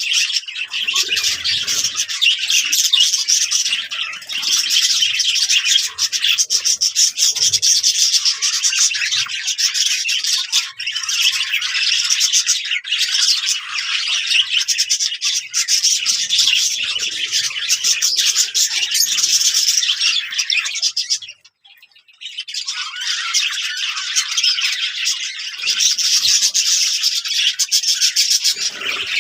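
Budgerigars chattering and warbling together, a dense, continuous stream of rapid chirps and twitters, breaking off briefly about two-thirds of the way through.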